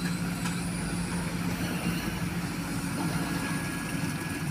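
Heavy diesel engines running steadily with an even, low hum: a Sany hydraulic excavator working its bucket and a concrete mixer truck beside it.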